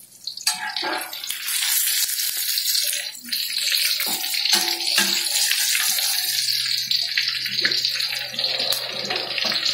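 Fish frying in hot oil in a wok, the oil sizzling steadily, with a few metal clinks as the fried fish are turned with a spatula and lifted out with a wire strainer. The fish are cooked through.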